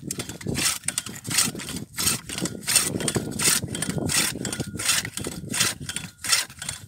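Ice chisel striking down into the ice to reopen a refrozen net hole, sharp chopping and crunching strikes about two to three a second.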